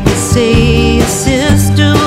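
Background music: a song with instruments and a wavering melody line.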